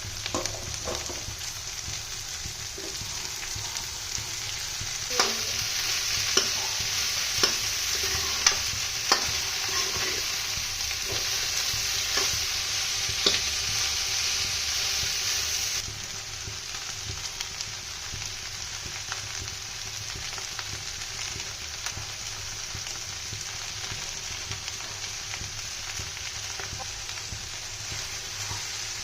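Okra and tomato sabzi sizzling as it fries in a pan, stirred with a spatula that knocks sharply against the pan several times. The sizzle is louder for the first half, then drops to a softer steady sizzle about halfway through.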